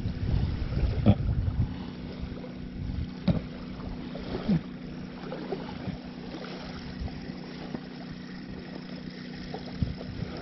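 Wind buffeting the microphone, heaviest in the first couple of seconds, over small waves lapping at a sandy lakeshore, with a faint steady low hum and a few light clicks.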